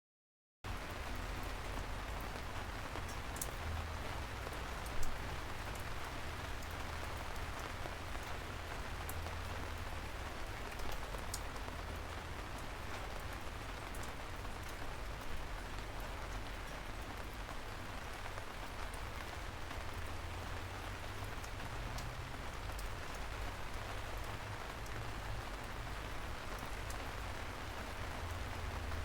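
Rain falling steadily on a parasol's fabric canopy, with scattered sharper single drop hits and one louder hit about five seconds in. It starts abruptly about half a second in.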